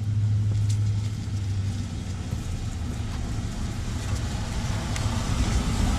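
A motor vehicle engine idling, a steady low hum, with a few faint clicks as wire ends are stripped.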